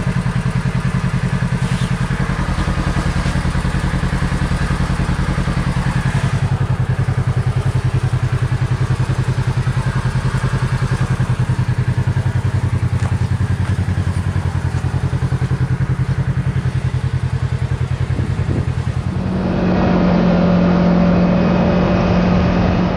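Kawasaki KRX side-by-side's engine running steadily while driving, with an even pulsing note. About three-quarters of the way through it gets louder and its tone steps up as the machine speeds up.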